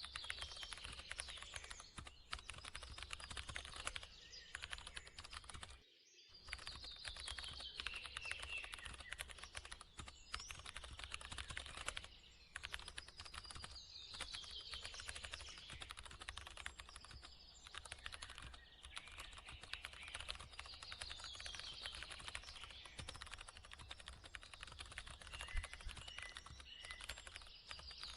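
Rapid, continuous computer keyboard typing, pausing briefly twice. Behind it, a falling series of chirps recurs about every seven seconds.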